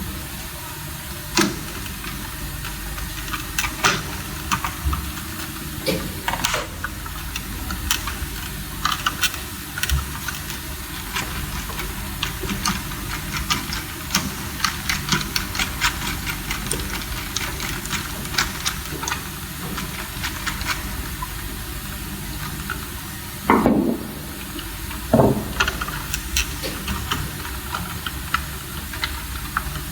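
Many small clicks and taps of hand wiring work on DIN-rail circuit breakers, as power and load wires are fitted to their terminals, over a steady hiss. Two louder knocks come a little over two-thirds of the way through.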